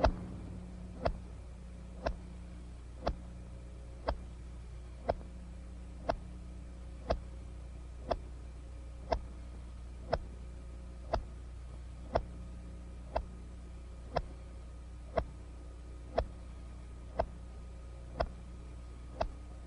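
Sharp clicks ticking steadily once a second, like a clock or timer counting off seconds, over a faint low hum.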